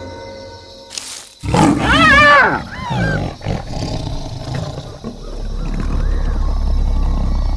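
A lion attacking a hyena: a sudden thump, then a burst of shrill cries that rise and fall in pitch, loudest about two seconds in, with growling underneath. A low steady rumble sets in past the middle.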